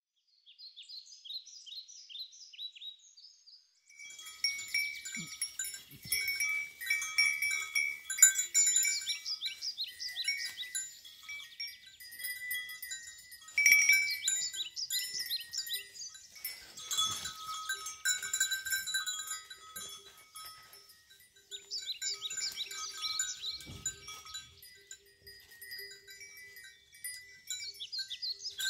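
Several birds singing: a dense mix of high chirps, quick repeated falling notes and short held whistles, with no goat bleats among them.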